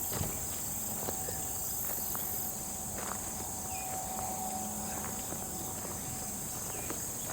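Steady high-pitched drone of insects such as crickets or cicadas, with a faint steady hum underneath for the first five seconds or so and a few light ticks.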